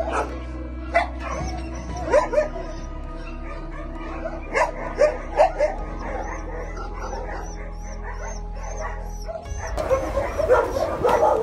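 Several dogs giving short barks and yips, a handful of times in the first six seconds, over steady background music.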